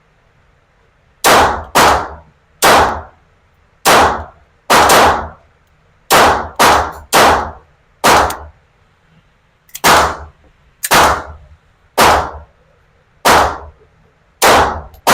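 A GSG .22 LR semi-automatic firing about fifteen single shots at an unhurried, uneven pace, roughly one a second. Each crack is followed by a short ringing tail.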